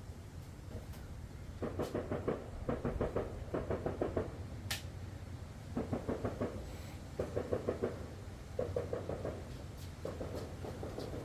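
Cordless drill/driver driving plastic-trim bumper screws in short bursts, about seven in all, each a rapid run of clicks under a second long. A single sharp click sounds near the middle.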